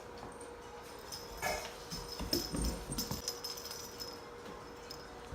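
A cat gives a short cry about one and a half seconds in, with scattered light knocks and low thumps after it.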